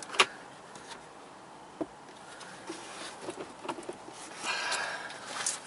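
Plastic glove box latch clicking open sharply, followed by small plastic clicks and knocks as the glove box is handled and lowered fully open.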